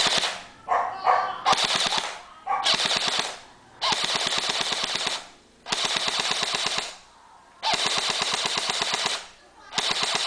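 JG M4A1 electric airsoft rifle firing full-auto, about eight bursts in a row, each about a second long with short pauses between: the gearbox cycling rapidly as it shoots 0.2 g BBs.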